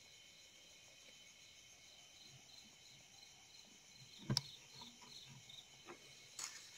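Crickets chirping steadily in a faint, high, pulsing chorus. Two sharp knocks, the first about four seconds in and the second near the end, with a few fainter taps between.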